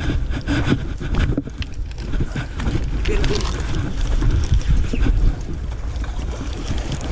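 Wind buffeting the microphone in a steady low rumble, with scattered short clicks and knocks, more of them in the first couple of seconds.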